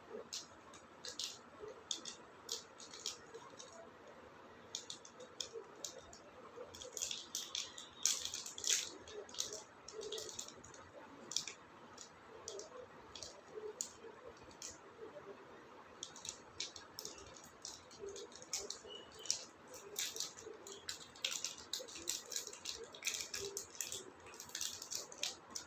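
Wrapper of a Dairy Milk Crackle chocolate bar crinkling and rustling as it is handled and opened, in irregular runs of short crackly rustles.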